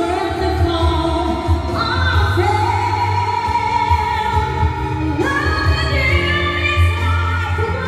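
A woman singing into a microphone through a PA loudspeaker over backing music with a steady bass line. She holds long notes, sliding up into a new one about two seconds in and again about five seconds in.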